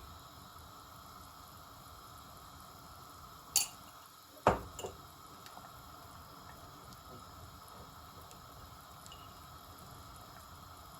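Thickened vegetable gravy simmering in a pan with a faint, steady bubbling, broken by two sharp knocks about a second apart near the middle.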